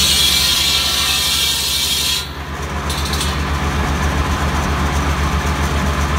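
Tractor-driven buzz saw (cordwood saw) cutting tree branches for firewood: the spinning circular blade rasps loudly through the wood for about two seconds, bites again briefly near three seconds, then runs on with a lighter cut. Underneath is the steady drone of the Kubota B7100's small diesel engine driving the saw.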